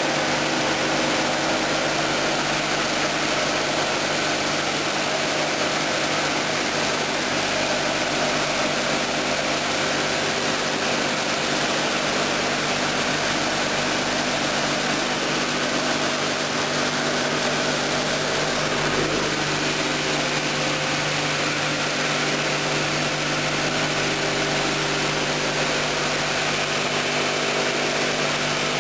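HK-0104/B bridge saw's water-cooled circular disc cutting through a stone slab: a steady hiss of the cut over a low, even hum from the blade motor.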